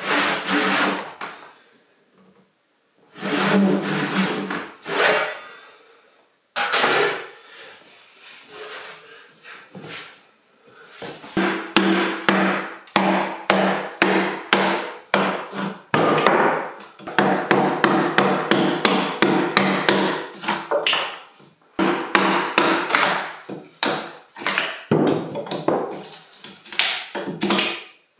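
A wood chisel driven by a mallet into a log, cutting out a notch for a loft floor joist: repeated sharp blows, each with a short ring, coming about two to three a second from about eleven seconds in, after a few separate bursts of work earlier on.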